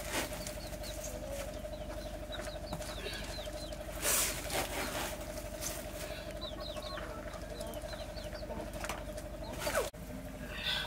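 Grain rustling and scraping as a metal cup scoops it from a woven plastic sack and tips it into a plastic drum, loudest about four seconds in and again near the end. Short high chirps of birds come and go over a steady hum.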